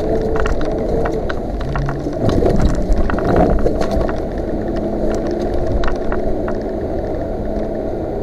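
Off-road vehicle's engine running while it drives over a rough, muddy track, heard from inside the cab, with frequent knocks and rattles as it goes over bumps. The engine swells louder for a moment about two seconds in.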